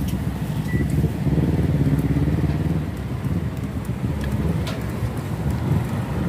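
Low, uneven rumble of passing motor traffic, with a couple of light metal clinks of a ladle against a stockpot a little past the middle.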